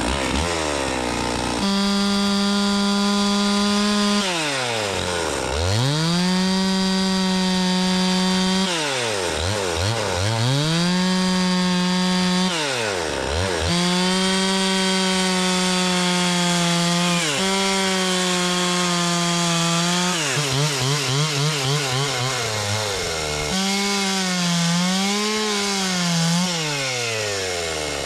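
Two-stroke chainsaw ripping a log lengthwise, held at high revs for a few seconds at a time and dropping back toward idle, then revving up again, several times. In the last few seconds the engine pitch wavers up and down as it works in the cut.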